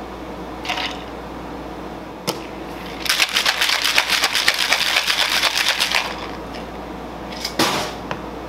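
Ice rattling hard inside a metal cocktail shaker, shaken fast for about three seconds as a drink is mixed. A single sharp click comes just before the shaking, and a short clatter near the end.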